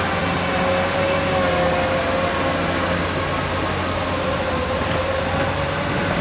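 Diesel engines of forestry skidders running under load on a muddy slope: a steady engine drone with a whine on top that dips slightly in pitch in the first second, then holds, and faint short high squeaks scattered through.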